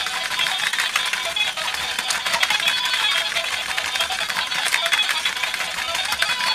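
Battery-operated walking toy horse circling its tether pole, its plastic gears and legs clattering in a fast run of clicks, with a tinny electronic melody playing.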